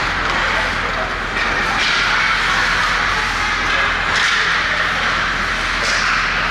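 Ice hockey rink game noise: a steady wash of skates on the ice and arena din, broken by a few short scrapes or clacks from skate stops, sticks or the puck.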